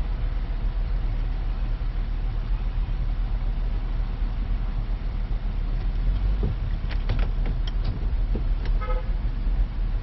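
Low, steady rumble of a car heard from inside the cabin while it waits in a drive-thru lane, with a few clicks and one short beep near the end.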